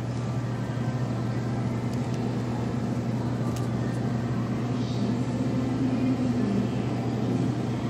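Grocery store background noise: a steady low machine hum, with a few faint clicks.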